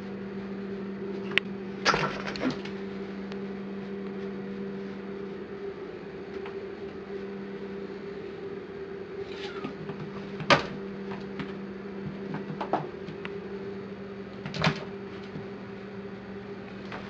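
A steady low hum runs throughout, with a few sharp knocks and scuffs, the loudest about ten seconds in, as a cat pounces on a string toy on a rug and tile floor.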